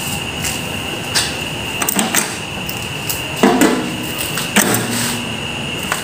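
A few scattered knocks and clunks from hands handling and shifting the opened metal chassis of a microwave oven on a workbench, over a steady high-pitched whine in the background.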